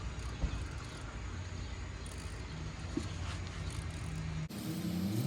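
Low, steady rumble like a vehicle running nearby, which cuts off abruptly about four and a half seconds in and gives way to a different steady low hum.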